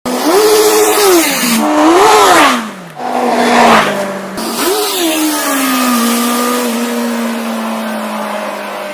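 2018 Honda CBR650F's inline-four engine through its stock exhaust, revved up and down three times, then holding a steady note that slowly drops in pitch and fades.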